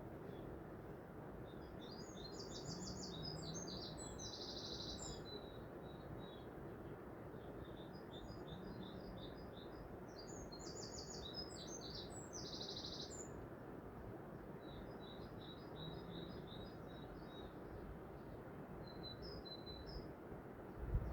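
A songbird singing, three repeated phrases of rapid chirps and trills, over a steady background hiss. A brief knock near the end.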